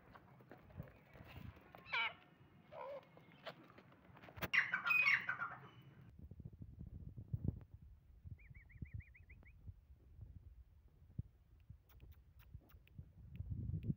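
Grey francolin calling: a few short calls in the first seconds, then a louder call lasting about a second, about four and a half seconds in. A quick run of high chirps follows around eight and a half seconds.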